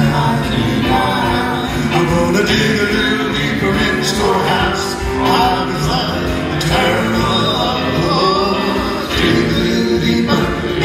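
Male gospel quartet singing together into microphones, with music behind the voices.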